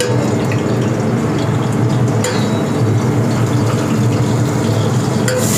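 Steady low hum and rushing noise of a commercial kitchen with its gas burners lit under the pans, and a faint click about two seconds in.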